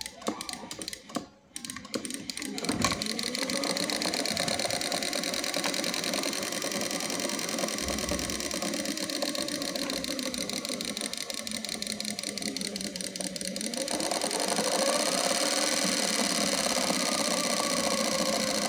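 Miniature Dongfeng diesel engine model, built from PVC pipe, starting up about three seconds in and then running with a rapid buzzing pulse. Its pitch rises and falls several times as the throttle lever is worked.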